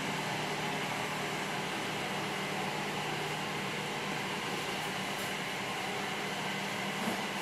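Steady background room noise: a constant even hiss with a low hum underneath, unchanging throughout.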